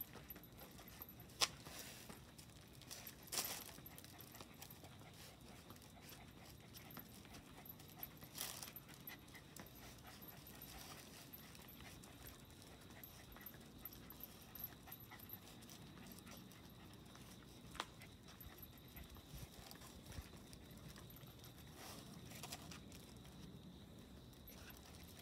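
A dog panting faintly, with a few scattered sharp clicks.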